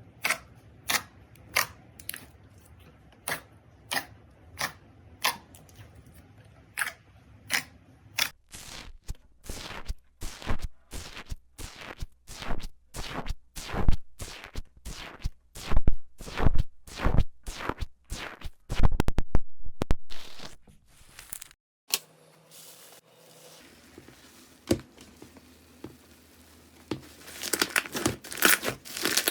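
Slime being handled close to the microphone. First comes a run of sharp pops at a steady pace of just under two a second, then faster, louder pops and crackles. After a brief lull it ends in dense crunchy crinkling.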